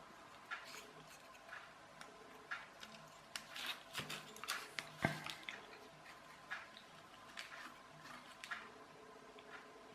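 Faint, irregular small clicks and light taps of the plastic photocell switch housing and its parts being handled, with a sharper click about five seconds in, over a faint steady hum.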